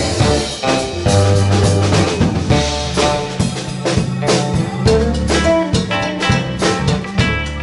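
A live band plays an instrumental passage, with drum kit hits on a regular beat, sustained electric bass notes and amplified electric guitars.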